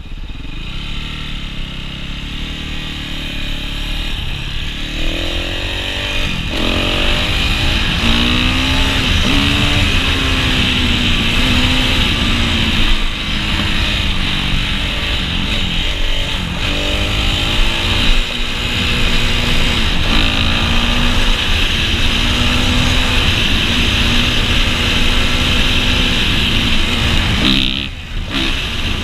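Dirt bike engine accelerating hard, its pitch rising and falling as it shifts up through the gears, then holding a steadier note at speed. A loud, steady rush of wind over the microphone runs throughout.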